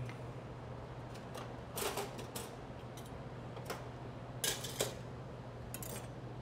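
A few scattered clicks and knocks of a knife and utensils being handled on a steel prep counter, the loudest about four and a half seconds in, over a steady low hum.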